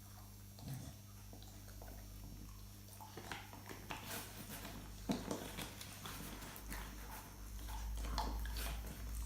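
Dogs chewing on chews: faint, irregular small clicks and crunches that come more often after about three seconds, over a low steady hum.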